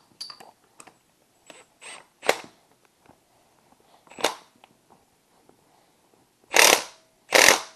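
Cordless impact wrench hammering in two short bursts near the end, tightening the pinion nut on a motorcycle final drive. Before that come a few light clicks and knocks.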